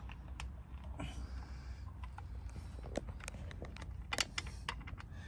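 Scattered light clicks and taps of parts and tools being handled at the underside of a small motorcycle engine during an oil change, with a sharp double click about four seconds in, over a low steady rumble.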